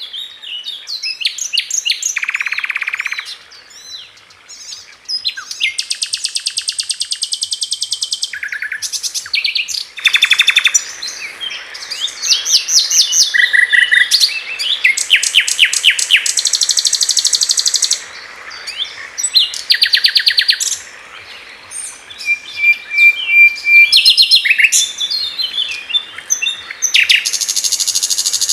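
Common nightingale singing its varied song: phrase after phrase of fast trills, rattles of rapidly repeated notes and clear whistled notes, with short pauses between phrases.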